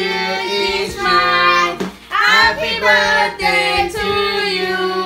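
Singing, with a child's voice prominent and music underneath, in phrases about a second long with held notes.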